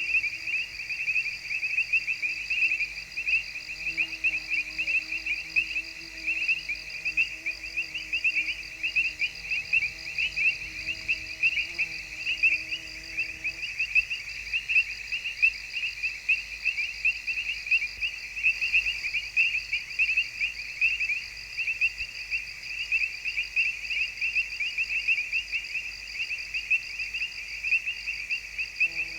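Insect chorus: a dense, rapid, shrill trilling that runs on without a break. Underneath, a faint low hum with several steady tones stops about halfway through.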